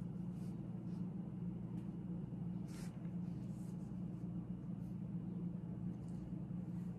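Quiet small room with a steady low hum and a few faint scratches of a pencil writing on paper.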